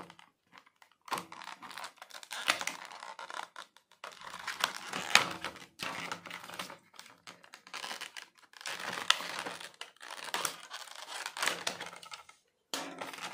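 Utility knife cutting open a stiff clear-plastic blister pack, the plastic crackling and crinkling as it is sliced and pried apart. The sound comes in repeated bursts with sharp clicks.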